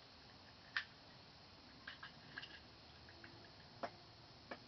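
Light clicks and taps from handling an MSR DragonFly stove's metal parts: a handful of short, scattered knocks, the sharpest about a second in.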